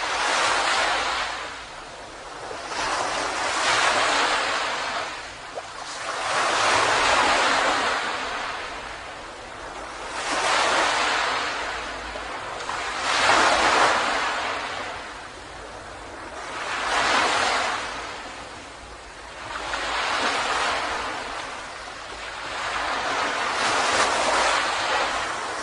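Ocean waves washing onto a beach, each one swelling into a hissing surge and then drawing back, about every three to four seconds.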